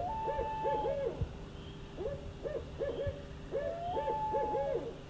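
An owl hooting: three runs of short hoots, the first and last joined by a longer, higher held note.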